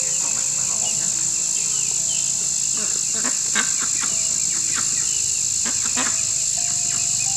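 Steady, high-pitched drone of insects, with the lower buzz of honey bees at an open hive and short, even buzzing tones as single bees fly close, plus a few faint clicks.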